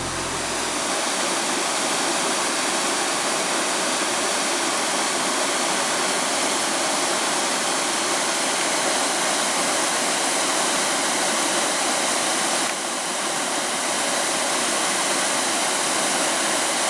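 Flowing creek water rushing in a steady hiss, with a slight dip about thirteen seconds in.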